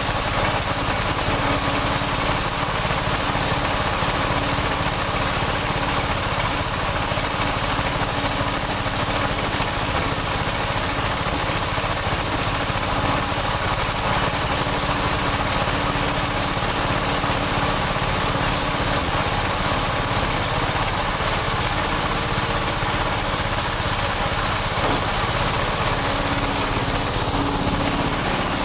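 Small single-cylinder snowblower engine running at a steady speed, warming up after a cold start.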